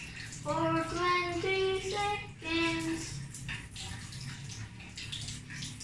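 Tap water running into a bathroom sink while hands are rubbed and rinsed under it. For the first three seconds or so a child's voice sings a few held notes of a tune over the water.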